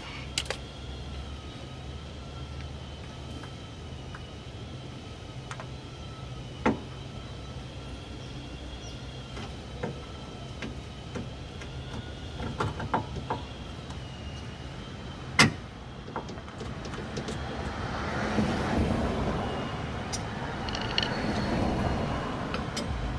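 A steady low motor hum, likely a vehicle engine running, with a faint wavering whine over it. Occasional sharp clicks and knocks come through, and a broader rushing noise swells up about three-quarters of the way in.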